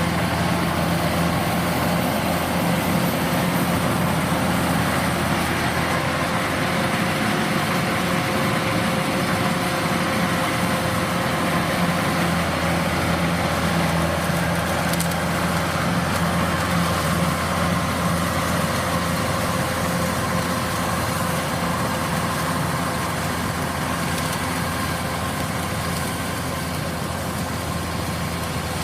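Kubota DC-105X combine harvester running steadily, its diesel engine and machinery making a constant loud drone with a few steady whining tones. It grows slightly quieter over the last several seconds.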